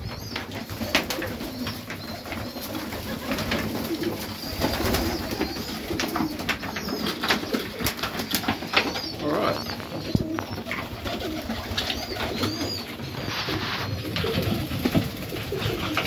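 Serbian Highflyer pigeons cooing in an enclosed loft, with many sharp clicks and knocks throughout.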